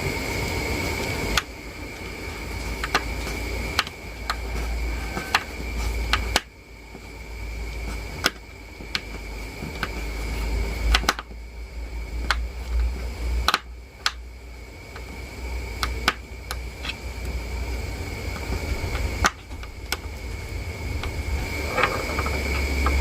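Scattered sharp clicks and taps of small phone parts and opening tools being handled during a smartphone battery replacement, over a steady hum with a constant high whine.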